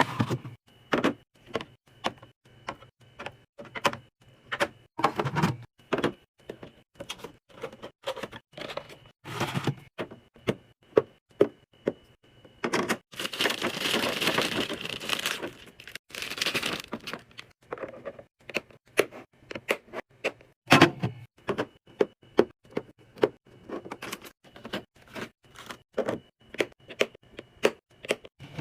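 Restocking sounds: plastic containers, lids and packaged items clacking and knocking as they are set down and snapped shut, many sharp clicks in quick succession. About halfway through there are a few seconds of steady rustling hiss.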